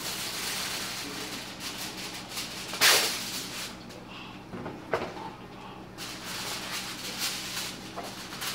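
Aluminium foil crinkling as a sheet is pulled out and spread flat, with a short loud crackle about three seconds in and a sharp click about five seconds in.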